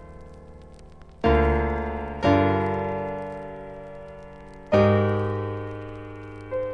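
Slow solo piano music: deep chords struck one at a time, each ringing out and fading before the next, with a softer note near the end.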